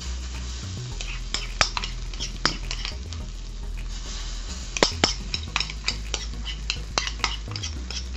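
A spoon clicking and scraping against a bowl as fritter batter is spooned out into a cast iron skillet, with hot oil sizzling under it. The clicks come irregularly, the loudest ones about five seconds in.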